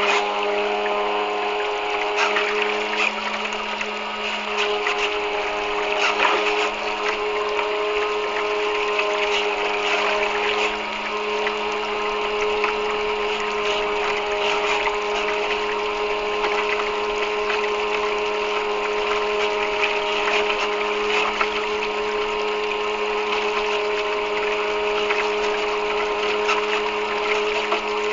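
Homemade bait boat's electric propeller motor running with a steady whine, picked up by a camera mounted on the boat, over continual water splashing and rushing against the hull.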